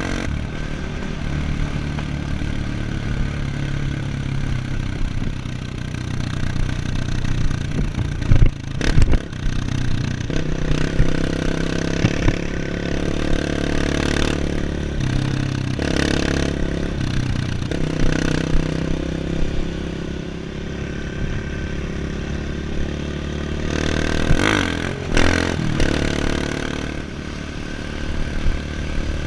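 Off-road motorcycle engine running as it rides a trail, its pitch stepping up and down with the throttle, with sudden knocks and clatter from bumps several times, the loudest about eight to nine seconds in.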